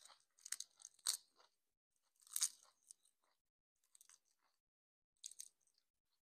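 Crisp crackling and crunching in about six short bursts, the loudest about a second and two and a half seconds in: dried seaweed (nori) sheets being torn, folded and chewed.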